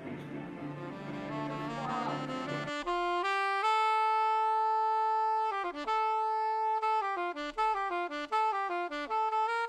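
Background music: a fuller mix gives way, about three seconds in, to a single instrument playing a melody, with one long held note followed by a run of shorter notes.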